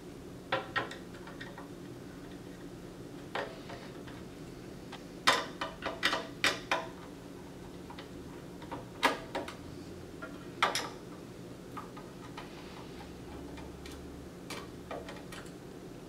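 Scattered light clicks and taps of a screwdriver and small screws on the NAS's metal case, as the screws holding the top cover are undone.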